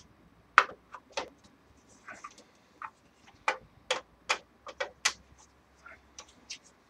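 Scattered, irregular light clicks and taps of a screwdriver being handled and worked at screws in a steel computer case, with a quick cluster of clicks a little past the middle.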